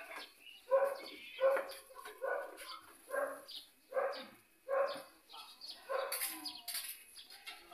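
A dog barking over and over at an even pace, a little more than one bark a second.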